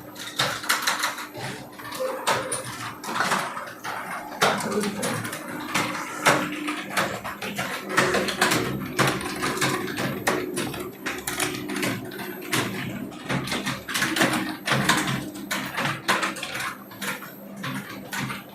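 Several computer keyboards being typed on at once: a dense, irregular clatter of key clicks.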